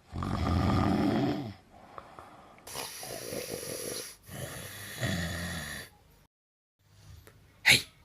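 A person snoring loudly in three long, rasping snores, the first the loudest. A short, sharp sound comes near the end.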